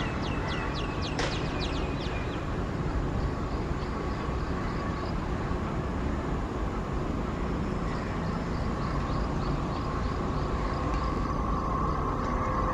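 Indian Railways WAP-4 electric locomotive hauling an express train as it approaches: a steady rumble, with a hum that gets louder near the end as it draws close. In the first couple of seconds a bird calls in a rapid run of falling chirps, with fainter runs later.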